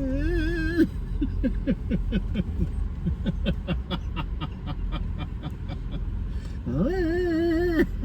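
A woman's voice imitating a car engine: a held, wavering hum, then a run of short falling sputters about three a second, then another held hum near the end.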